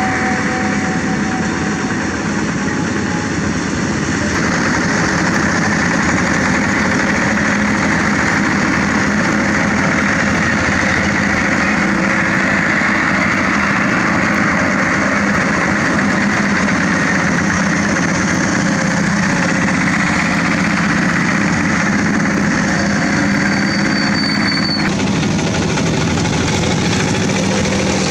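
Several walking tractors' single-cylinder diesel engines running together with a steady knocking chug. The sound shifts abruptly about four seconds in and again near the end.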